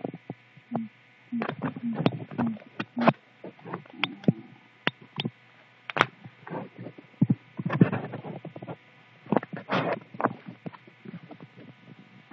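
A cat's claws and paws scrabbling and scratching on a fabric bedspread as it plays: irregular short scratches and rustles, some louder than others, over a low steady hum.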